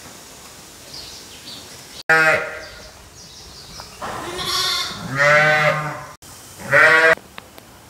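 Sheep bleating: four loud bleats, the third deeper and longer than the rest.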